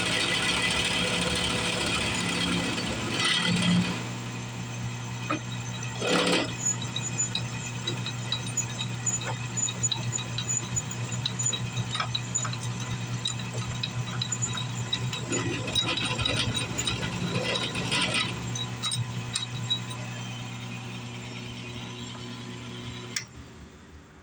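Northern Tool 8-inch drill press, converted to a small mill, running with a steady motor hum while its cutter mills aluminum. The cutting noise is louder for the first four seconds, then eases to the hum with scattered clicks, and the hum stops near the end.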